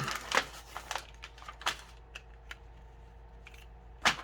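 Handling noise from a utility knife and a taped cardboard package: rustling scrapes at the start, scattered small ticks, and one sharp click about four seconds in.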